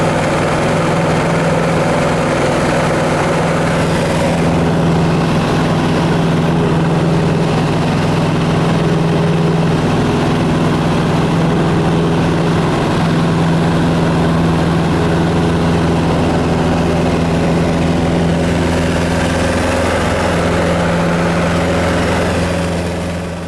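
Aircraft engine running steadily at low power: a loud, even hum that holds unchanged throughout.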